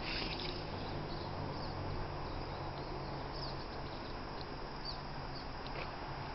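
Quiet background ambience: a steady low hum under faint hiss, with scattered short, high bird chirps.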